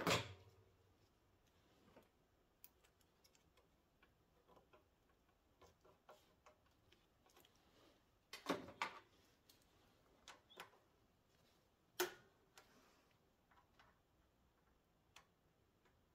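Mostly near silence, broken by scattered faint clicks and three louder short knocks: one right at the start, one about eight and a half seconds in and one about twelve seconds in.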